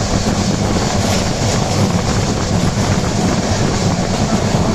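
Steady rumble of a moving train, heard from on board.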